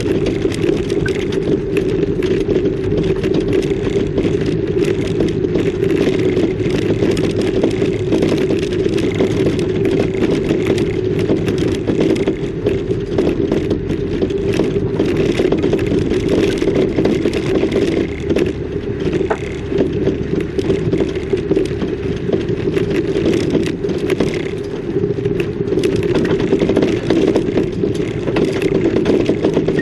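A vehicle's engine running steadily while driving, with frequent rattles and clatter over the drone.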